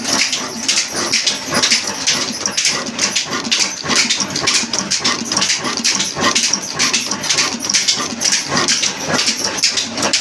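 Old Pakistani-built Naz Industries 20 hp stationary diesel engine running steadily, with an even, rapid beat of about four strokes a second.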